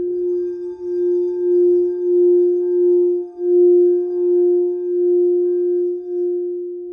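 Singing bowl played by circling its rim with a wooden mallet: one steady ringing tone with fainter higher overtones, swelling and dipping in a slow even pulse about every three quarters of a second.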